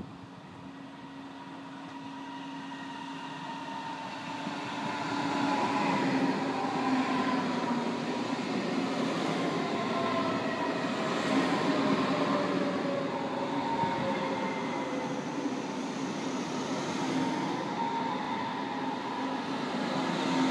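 A DB Class 423 S-Bahn electric multiple unit runs in along the platform, growing louder over the first five seconds. It is a steady rumble with a whine from its electric drive that falls slowly in pitch as the train slows.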